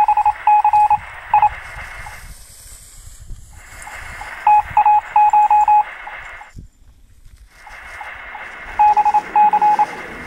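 Three bursts of radio-like static, each carrying a run of short beeps in an uneven, Morse-code-like pattern, with short quiet gaps between the bursts.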